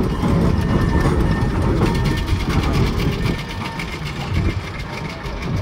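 Steam traction engine running past at speed, its engine beating quickly and evenly over a heavy low rumble, getting somewhat quieter about three and a half seconds in as it moves away.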